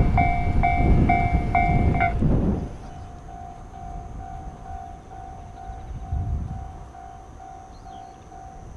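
A train running over the level crossing, its rumble dying away about two seconds in. A Japanese level-crossing alarm dings steadily throughout, about twice a second, and is fainter once the train has gone.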